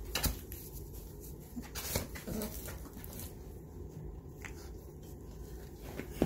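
Six-week-old puppy nuzzling and licking against a person's skin and clothes: soft rustles, a few wet clicks and small snuffles.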